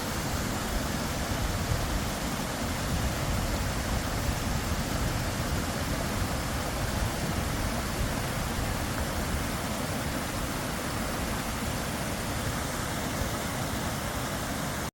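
Steady rush of water from a waterfall or creek, an even, unbroken noise with a heavy low rumble.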